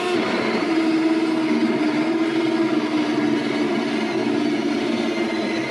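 Cordless 20-volt drill driving a 1.5-inch hole saw up through the bottom of a wall cabinet. The motor runs with a steady whine while the saw cuts, throwing out sawdust.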